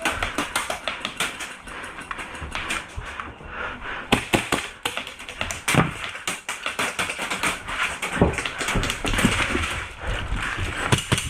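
Airsoft guns firing around the field: many sharp, irregular clicks and pops, some in quick runs.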